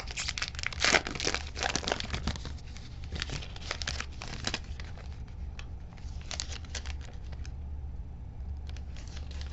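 Foil trading-card pack wrapper being torn open and crinkled by hand. The crackling is dense for the first few seconds, loudest about a second in, then thins to scattered crinkles.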